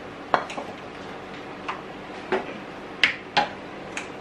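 Coconut oil heating in a hot nonstick frying pan, popping in about seven sharp, irregular ticks over a faint steady hiss.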